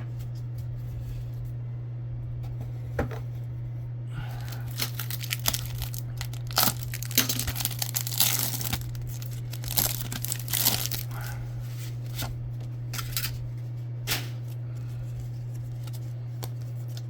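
A foil trading-card pack wrapper being torn open and crinkled, in a cluster of rustling tears from about four to eleven seconds in, with a few sharp clicks. A steady low electrical hum runs underneath.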